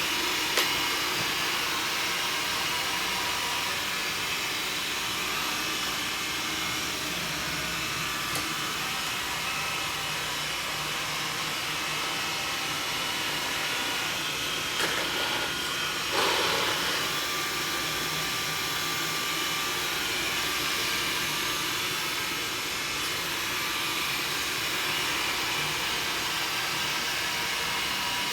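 Xiaomi Mi robot vacuum running steadily, its suction motor giving an even whirring hiss. A few brief clicks and knocks sound over it, the loudest about 16 seconds in.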